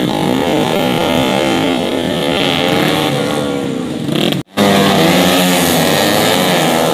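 Several small-engine racing motorcycles revving and passing, their engine notes rising and falling over one another. The sound drops out abruptly for a moment about two-thirds of the way through, then the engines resume.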